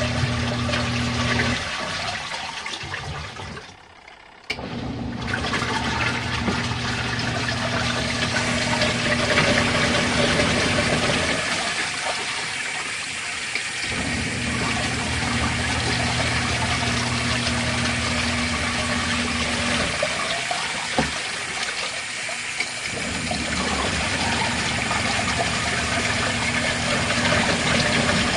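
Twin-tub washing machine's wash motor running, a steady hum with water churning in the tub. The motor stops three times for a few seconds, the usual pause of the wash cycle, before starting again.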